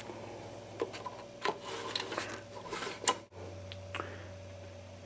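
A 5¼-inch floppy disk being handled and slid into an Apple II disk drive: a few light clicks and rubbing scrapes over a faint steady hum.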